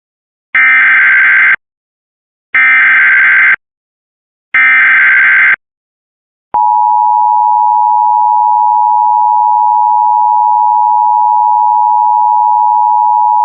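Emergency Alert System header: three bursts of shrill digital data tones, each about a second long and two seconds apart, then a steady loud attention tone that starts about six and a half seconds in and holds. This sequence announces the start of a new alert.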